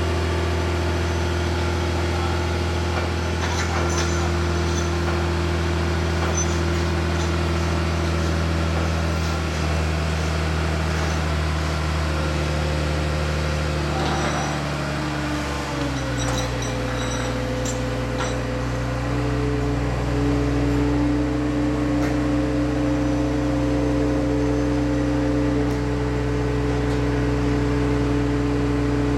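Mobile crane's engine and hydraulic drive running steadily while the hook is let down on its cable. The engine note changes about halfway through, settling on a lower, slightly different hum.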